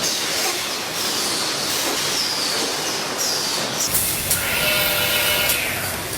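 Stainless steel bottle factory machinery running, a steady metallic clatter broken by short falling squeals. About four seconds in, a high whine with several tones starts and holds for about two seconds.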